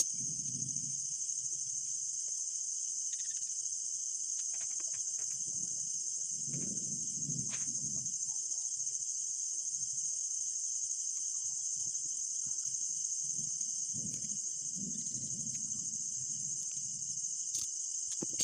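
A steady, high-pitched chorus of crickets, with faint low sounds coming and going and a few light clicks.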